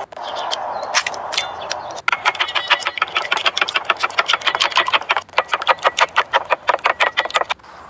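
Raw eggs beaten with a wooden utensil in a stainless-steel bowl: a fast, even clatter of strokes against the bowl, about six a second, starting about two seconds in and stopping near the end.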